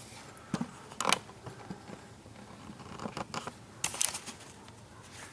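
A few light clicks and scrapes of hands moving parts aside in a car's engine bay, in short separate bursts, the loudest a quick double click about a second in and a cluster near four seconds.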